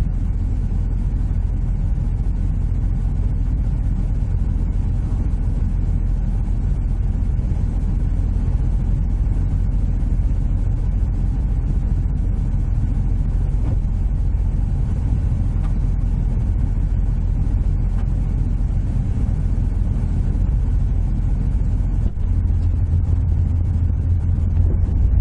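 AE86's five-valve 4A-G engine and road noise heard from inside the cabin while driving, a steady low drone. Near the end the engine note shifts higher.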